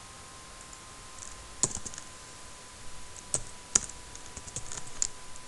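Computer keyboard keystrokes: a few separate key presses about a second and a half in and again past the middle, then a quick run of light taps, over a faint steady whine.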